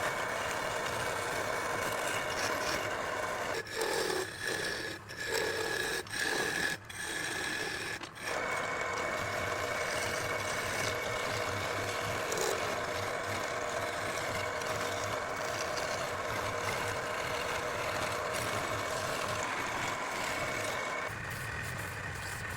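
Wood lathe running while a turning tool scrapes and cuts the spinning teak. The tool is touched on in several short passes around the middle, then held in steady contact. Near the end the cutting stops and the lathe runs on with a lower hum.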